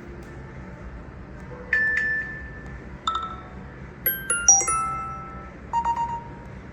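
An iPhone 14 Pro Max's speaker playing short bell-like chime tones. A single ding comes about two seconds in, another a second later, then a quick run of bell notes and a few softer notes near the end, each at a different pitch and ringing out briefly.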